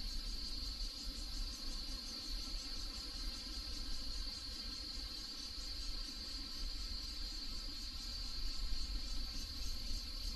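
Insects trilling in a steady, continuous high-pitched chorus, over a low rumble.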